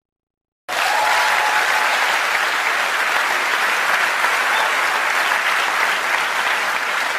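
Crowd applause that cuts in abruptly from silence about a second in and carries on steadily.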